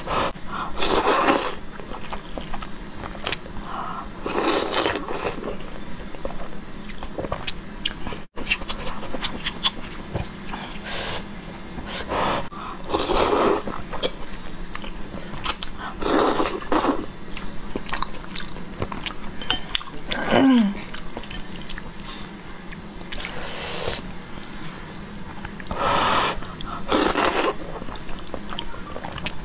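A person slurping noodles: loud sucking slurps every few seconds, with chewing in between.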